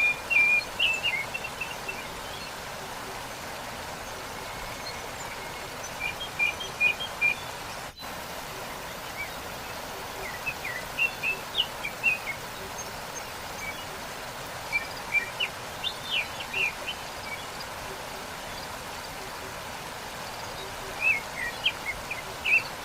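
Waterfall rushing steadily, with a songbird singing short bursts of high chirps about every five seconds. The sound drops out for an instant about a third of the way in.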